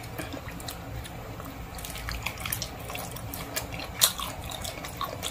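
Wet chewing and lip-smacking of someone eating cooked goat-head skin and meat with his hands: a string of small, irregular wet clicks, with one louder smack about four seconds in.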